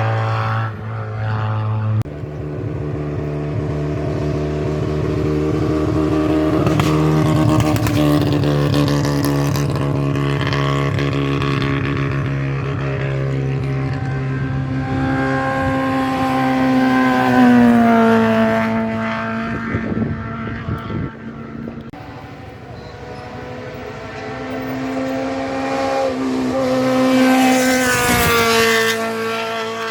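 Historic racing car engines at full throttle on a hillclimb, revving up and shifting gears as the cars pass. One car's engine drops away about two-thirds of the way in, then another climbs in pitch and passes loudly near the end.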